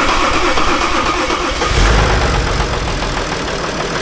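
BMW X5 40d's twin-turbo straight-six diesel engine running just after being started. A brief swell of low rumble comes a little under two seconds in, then it settles into a steadier idle.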